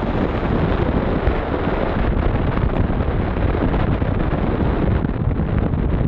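Wind buffeting the microphone: a loud, steady rushing noise, heaviest in the low end, with no other sound standing out.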